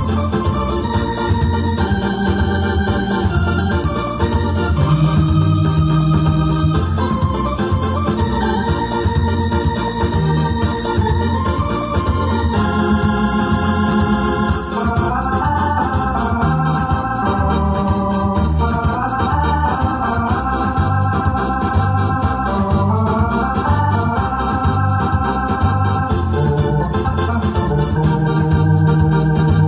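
Electronic arranger keyboard played by hand: a melody over held chords, with a steady drum-and-bass accompaniment running underneath.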